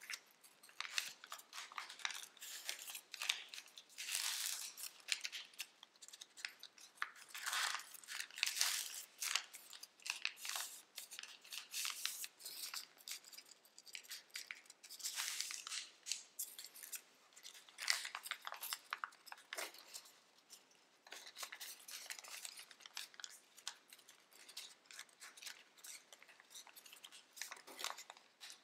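Tissue-foil origami paper crinkling and rustling as it is folded and creased by hand, in uneven crackles that come and go.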